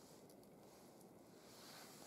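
Near silence: faint ticking crackle of pine feather-stick shavings catching fire, with a soft hiss that grows near the end as the flames build.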